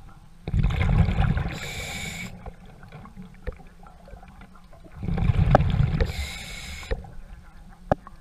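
A scuba diver breathing underwater through a regulator, twice about four and a half seconds apart: each breath a loud bubbling rush of air that ends in a hiss. A few faint sharp clicks fall between the breaths.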